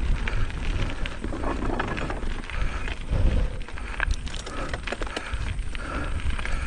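Mountain bike being ridden on a dirt trail: an uneven low rumble from the tyres and wind on the microphone, with scattered clicks and rattles from the bike.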